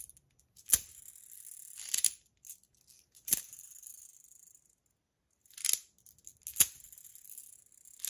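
Budget PillBug fidget toy flicked and spun in the hand: five sharp clicks at uneven spacing, most followed by a short fading whirr with the rattle of a ball added inside the toy.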